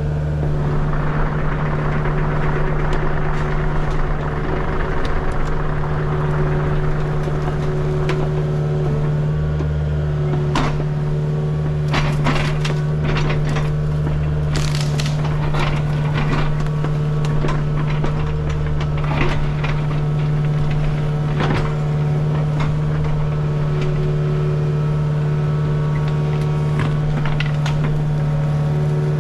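Excavator engine running steadily under work, with repeated sharp cracking and snapping of brush and wood as it clears the ground.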